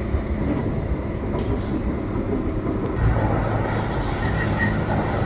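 Steady, loud rumbling noise of a vehicle in motion, with a deeper hum that grows stronger about three seconds in.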